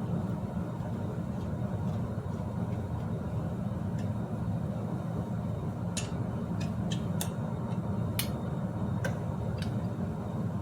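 Steady low hum under a handful of sharp, light metallic clicks spread unevenly through the second half, from tools and parts as a bicycle headset, stem and top cap are fitted and tightened.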